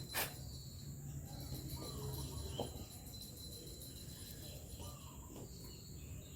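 Insects chirring steadily at a high pitch, with a sharp click just after the start and a low hum underneath.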